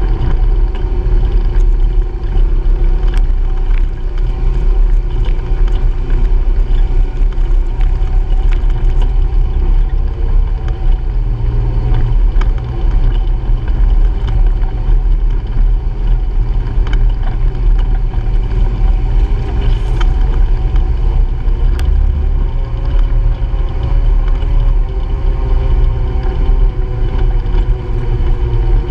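Honda Pioneer 700-4 side-by-side driving a dirt trail: its single-cylinder engine runs steadily under way over a heavy rumble, with a few sharp clicks and rattles.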